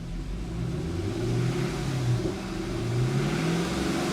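2015 Chevrolet Camaro engine, running smoothly after a repair of a cylinder-6 injector misfire, is revved twice, its pitch rising and falling each time.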